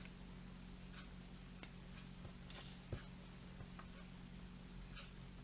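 A few faint, scattered clicks and taps of small metal pin headers being handled and pushed into place on a workbench, over a low steady electrical hum.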